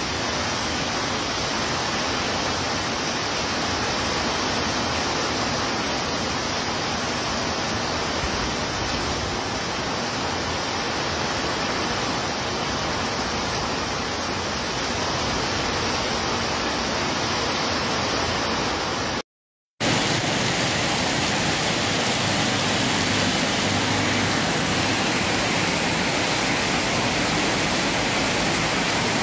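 Heavy rain pouring down, a steady dense hiss. It drops out for about half a second some two-thirds of the way through, then carries on with a slightly different tone.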